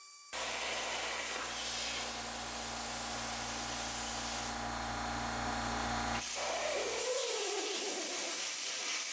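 Cut50L air plasma cutter cutting mild steel on a CNC table: the plasma arc and air stream make a steady, loud hiss over a low hum. The hum stops about seven seconds in while the hiss goes on.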